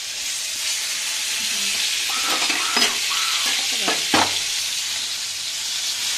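Papad deep-frying in hot oil in a stainless-steel kadai, a steady sizzle, with a couple of sharp clicks around the middle.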